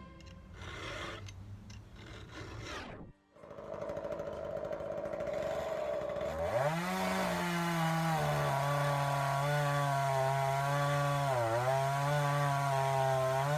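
Two-stroke chainsaw revving up about halfway in and held at high speed, its pitch dipping briefly near the end.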